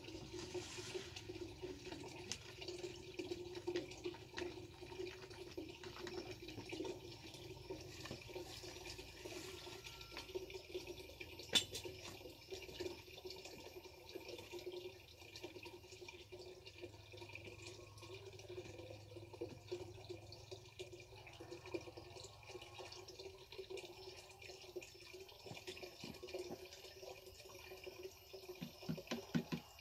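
Water running and splashing steadily into a plastic knapsack sprayer tank as it is filled to mix pesticide. A single sharp knock about a third of the way through, and a few light knocks near the end.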